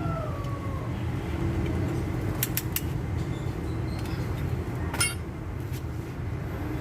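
Light metallic clicks and taps of hand tools on the engine block while pistons are fitted, a few close together a couple of seconds in and one more about five seconds in, over a steady low hum.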